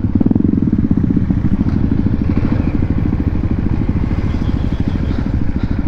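Motorcycle engine running steadily while riding, its exhaust pulses close and even.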